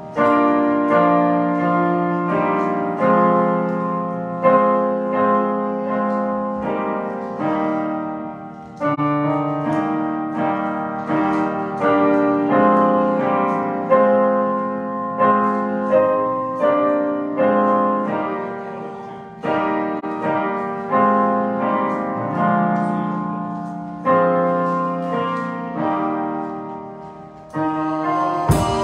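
Church keyboard playing slow piano chords. A new chord is struck about every second and a half and left to ring and fade.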